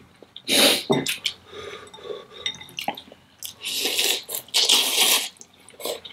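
Noodles being slurped and chewed, with two long slurps, one about half a second in and a longer one around four to five seconds in, and small utensil clinks against a bowl in between.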